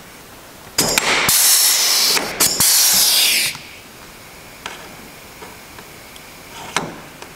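Air-hydraulic rivet gun setting a rivet: a click, then two loud bursts of hissing air, each about a second long, with clicks between them. A few faint clicks follow.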